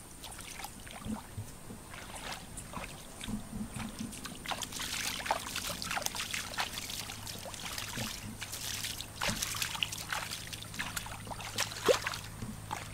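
Hands sloshing and splashing through shallow muddy water while groping in the mud for fish, in irregular splashes that come thickest in the middle, with one sharper splash near the end.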